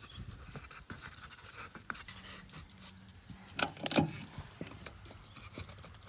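Wooden shim being worked into place on a wood-and-concrete-block pier: light scraping and small clicks of wood on wood, with two sharp knocks about three and a half and four seconds in.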